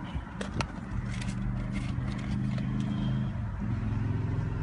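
Car engine idling, heard from inside the cabin as a steady low hum that changes slightly about three and a half seconds in. A couple of sharp knocks come near the start.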